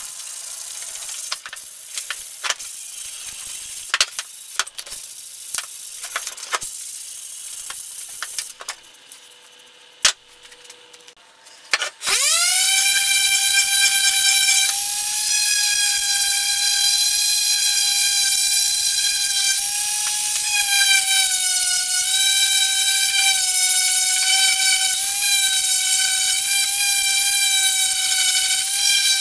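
Scratchy rubbing with scattered clicks, then about twelve seconds in a random orbital sander starts, winds up to speed and runs as a steady high whine while sanding the wooden head of a pallet-wood mallet, its pitch dipping slightly now and then.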